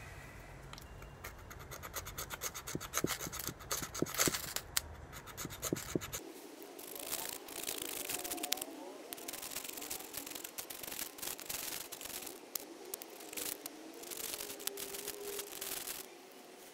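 Ferrocerium fire-starter rod scraped again and again with a steel edge, a long run of rapid rasping strikes aimed at wood shavings. The strikes stop shortly before the end.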